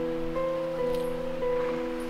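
Background instrumental music: a slow melody of held notes that change pitch about every half second, over a sustained lower chord.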